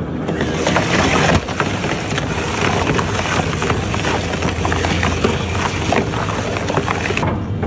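Twin-shaft shredder's toothed rotors gripping and tearing apart a tractor tyre: a loud, dense tearing noise full of sharp cracks and snaps over a steady low machine hum. It cuts off abruptly near the end.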